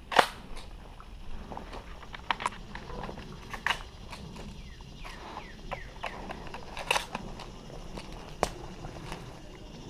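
Footsteps on a dirt and grass trail, with several sharp cracks scattered through. The loudest crack comes just after the start.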